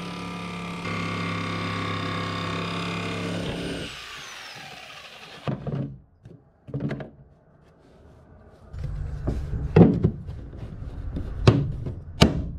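Corded jigsaw cutting a round hole in a boat's fibreglass panel, running steadily for about four seconds, then winding down with a falling whine. Then scattered knocks and handling noise as the cut-out disc is lifted out and a plastic inspection port ring is pushed into the hole, with several sharp clicks near the end.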